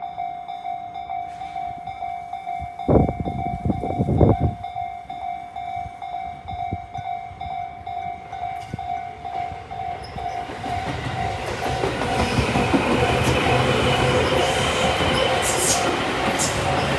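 Japanese level-crossing warning bell of the Tobu Tojo Line type, sounding a steady repeating electronic ding. A train approaches from about ten seconds in and passes with a growing rumble and rail clatter. There are two short loud sounds about three and four seconds in.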